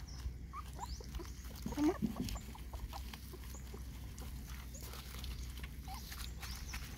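Young puppies whimpering in short high squeaks, several in the first two seconds and a faint one near the end, over small clicking sounds of the litter eating.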